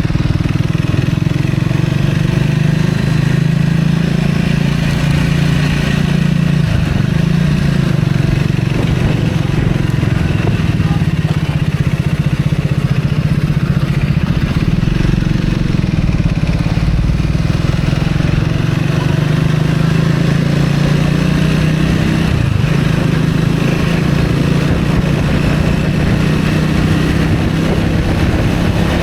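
Vehicle running steadily on the move: a continuous low engine hum with road noise.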